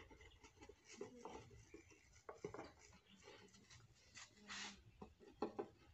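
Faint scrapes, taps and crinkles of an empty plastic bottle being pressed and worked on a concrete floor over a snake's head, with a short hiss about four and a half seconds in.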